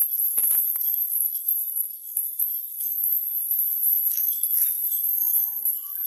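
Continuous high-pitched jingling of many small bells on a flock of pigeons as they walk about, with a few soft thumps about half a second in.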